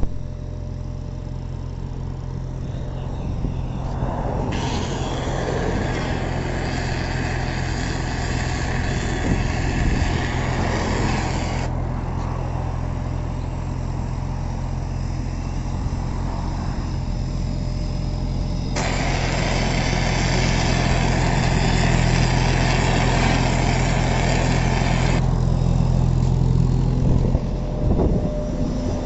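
Hofmann road-marking machine working: its engine drones steadily, and twice a hiss from the marking gear switches on abruptly, runs about seven seconds and cuts off.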